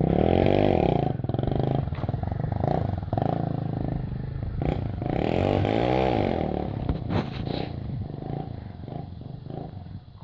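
Motorcycle engine running while riding over a rough dirt track, its pitch rising and falling twice, then fading out near the end.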